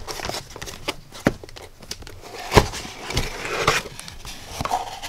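A small white cardboard box being handled and opened by hand: a few knocks and taps on the box, the loudest about two and a half seconds in, then cardboard and paper rustling as the lid comes up.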